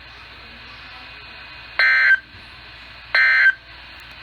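Emergency Alert System (SAME) digital data bursts, the end-of-message code sent after a warning: two short, identical electronic tone bursts about a third of a second each, roughly 1.3 seconds apart, over a faint steady hiss.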